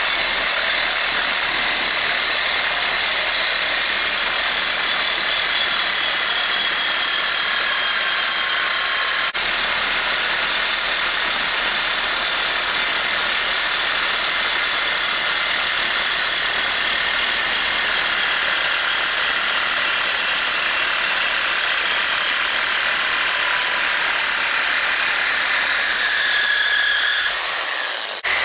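Angle grinder grinding steel steadily, rounding off the edges of a welded steel plate. Near the end the motor winds down with a falling whine, cuts out for a moment, then starts up again.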